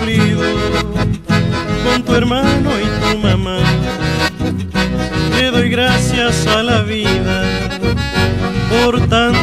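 Chamamé band music led by an accordion melody over a steady, pulsing bass rhythm.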